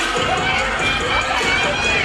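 Audience cheering and shouting, many voices at once, with music playing underneath.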